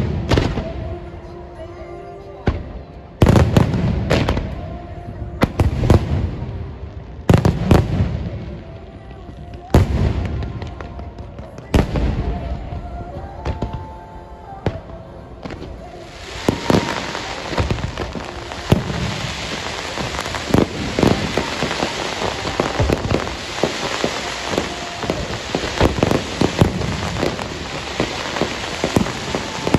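Fireworks: heavy booms of shells bursting about every two seconds, each with a ringing tail, then from about halfway a dense, continuous crackle of many small rapid pops.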